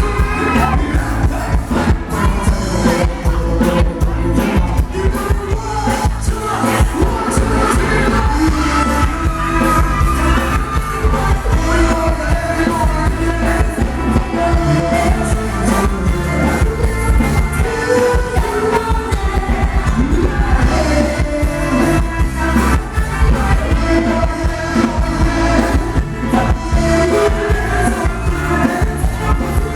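Live band playing Thai ramwong dance music, with a singer over a steady beat.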